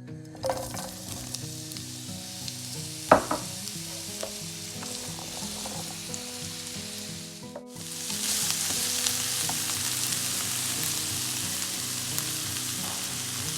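Food sizzling as it fries in oil in a tajine over a wood fire, with a sharp clink about three seconds in. After a cut near eight seconds the sizzling is louder.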